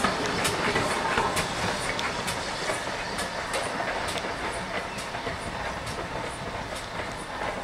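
Steam-hauled passenger train running past and drawing away, with sharp clicks coming about twice a second and the sound slowly fading.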